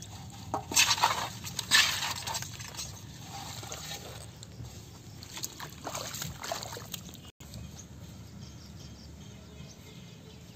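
Muddy water sloshing and splashing in short bursts, loudest about one and two seconds in, then fainter.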